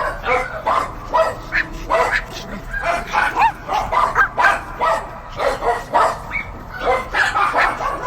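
Several dogs barking and yipping without a break, with short, overlapping barks of differing pitch coming several times a second.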